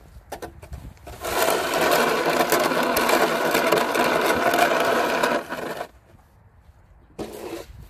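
Plastic snow shovel blade scraping along an asphalt driveway as it pushes a load of snow: a few light knocks, then a steady rasping scrape of about four seconds, and a brief scrape near the end.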